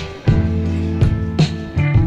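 Background music: a guitar track with a regular drum beat.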